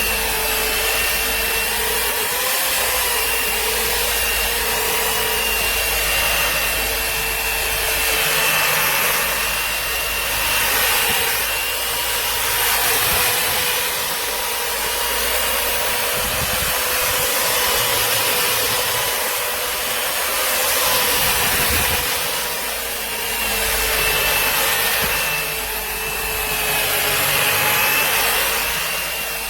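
FANZWORK V2 1500 W satin-finishing machine running with its brush roller on a surface: a steady high motor whine over a dense rasping, swelling and easing every two to three seconds.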